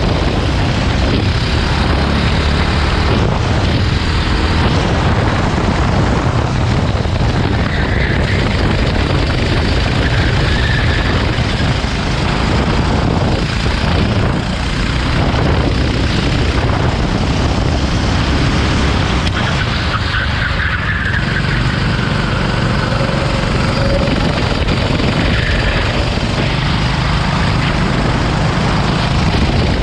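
Onboard sound of a rental kart lapping at racing speed: its engine runs hard and loud without a break.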